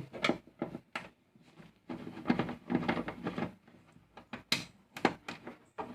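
Irregular sharp clicks and knocks with scraping, as a screwdriver takes screws out of an LED TV's plastic back cover.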